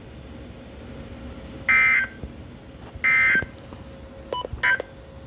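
Emergency Alert System end-of-message data bursts from a NOAA Weather Radio broadcast: three short bursts of warbling two-tone data, about a second and a half apart, marking the close of the weekly test. A couple of brief beeps sound near the end.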